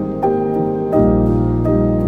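Slow, calm ambient music: a sequence of soft pitched notes, each held and fading, with a deep bass note coming in about a second in.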